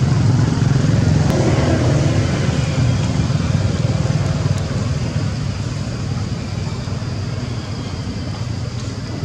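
Steady low engine rumble, easing off slightly in the second half.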